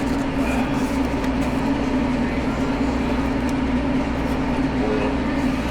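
Steady mechanical drone with a low hum, even in level throughout, with a few faint clicks.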